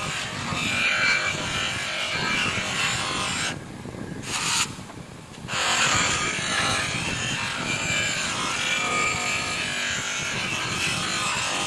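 Abrasive rubbing on the metal of a rear drum brake cover as it is sanded and polished. It pauses twice briefly, about three and a half and five seconds in.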